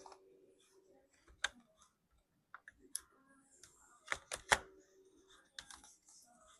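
Plastic clips of an ASUS laptop's bottom cover clicking and snapping as the cover is pried loose along its edges with a pry tool. Scattered sharp clicks, with a quick run of three about four seconds in, the loudest of them.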